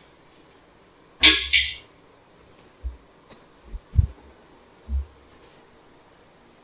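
Steel cooking pan being handled and lifted off a gas stove's grate: two short scraping noises a little over a second in, then a few light knocks and a heavier clunk about four seconds in.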